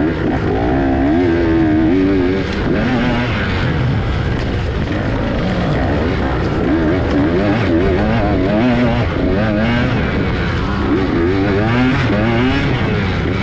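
Dirt bike engine revving under constantly changing throttle, its pitch rising and falling quickly and unevenly during off-road riding.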